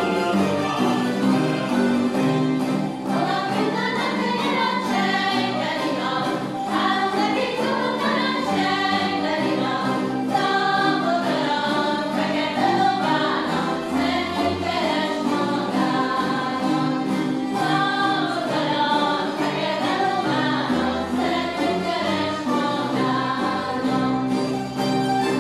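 Hungarian citera (zither) ensemble playing a folk tune together, the melody strummed in tremolo.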